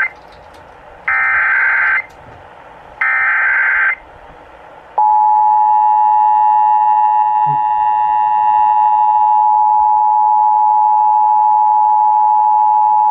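Emergency Alert System SAME header: the end of one raspy digital data burst and two more, about a second each and a second apart, followed by the EAS two-tone attention signal (853 and 960 Hz together), a steady buzzing tone held for about eight seconds, announcing an emergency alert broadcast over the radio.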